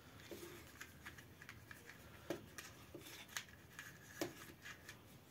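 Faint, scattered small clicks and taps, a few sharper ones in the second half, from a compact baitcasting rod and its plastic guide protector being handled.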